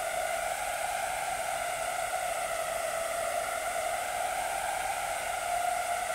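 Steady hiss with a hollow, whooshing tone, unbroken and even in level.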